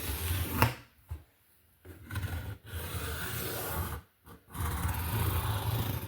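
Pencil scratching across cardboard, drawing the lines of a rectangle in several long strokes with short pauses between.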